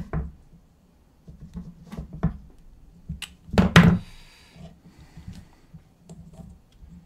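A hex screwdriver and small metal frame parts of a carbon-fibre quadcopter being handled: scattered clicks and knocks, with a louder clatter a little past halfway.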